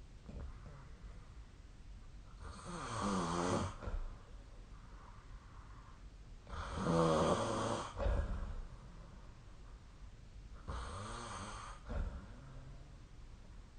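A sleeping person snoring: three snores about four seconds apart, each lasting a little over a second, with a wavering pitch.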